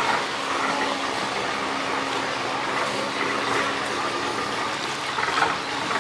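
Water churning and rushing along a boat's hull in the propeller wash, a steady rushing sound, with the low, even drone of the rice barge's Komatsu turbo diesel engine underneath.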